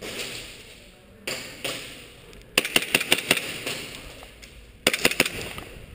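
Airsoft gunfire: a rapid string of about seven sharp cracks in one second, then a shorter volley of three or four more near the end.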